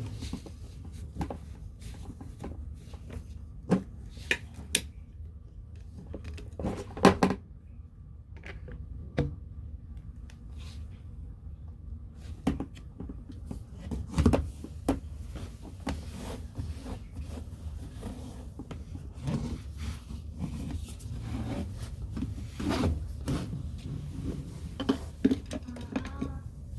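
Scattered knocks, clicks and rubbing of objects being handled and set down during cleaning, the loudest about 7 and 14 seconds in, over a steady low rumble.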